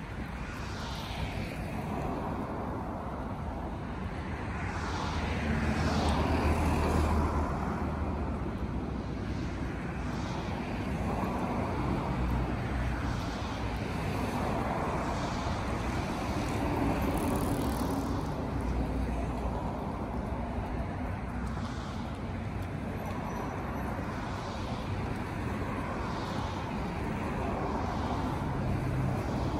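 City street ambience: a steady rumble of road traffic, swelling as vehicles pass, loudest about six seconds in.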